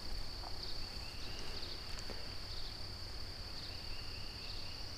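Steady high-pitched drone of insects in the waterside trees, with a fainter pulsing chirp beneath it and a single faint tick about two seconds in.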